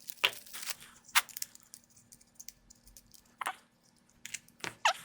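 Plastic packaging crackling and crinkling as it is handled and opened to get a small phone-tripod bracket out, with scattered sharp clicks. The clicks come about a second in, again after three seconds, and near the end.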